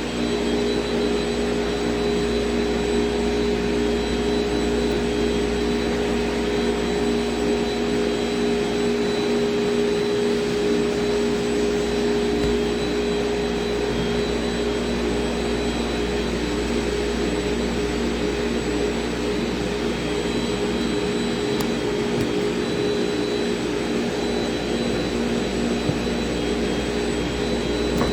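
CNC router running steadily while routing, a constant machine whine with a few fixed tones over an even rushing noise.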